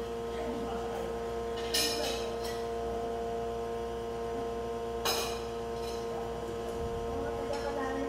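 La Spaziale S2 espresso machine's pump running with a steady hum as it pulls a test single shot on its freshly calibrated dose, with two short sharp clicks about two seconds in and about five seconds in.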